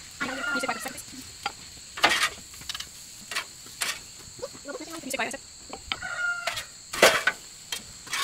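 Stainless steel bowls and a serving spoon clanking sharply a few times as scrambled eggs are dished out, the loudest knocks about two seconds in and near the end. Chickens cluck in short bursts between them over a steady high-pitched drone.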